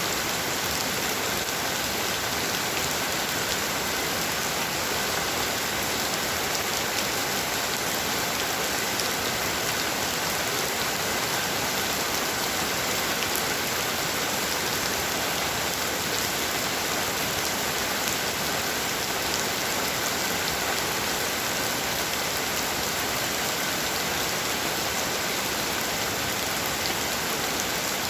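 Heavy rain falling steadily, a dense even hiss with scattered drop ticks.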